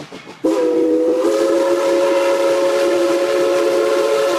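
Steam locomotive chuffing briefly, then its whistle blowing a long, steady chord of several notes from about half a second in.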